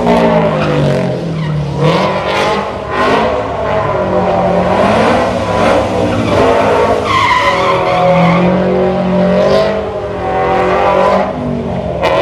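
Drift cars sliding through a corner: engines revved hard, the pitch rising and falling again and again as the throttle is worked, with tyre squeal.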